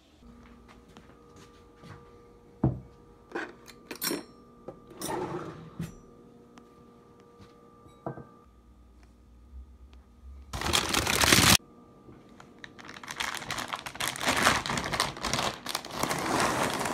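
Dishes being handled at a kitchen counter: scattered knocks and clinks, among them a bowl set down on a placemat, then a loud rush lasting about a second, followed by a long stretch of dense crackling and rustling near the end.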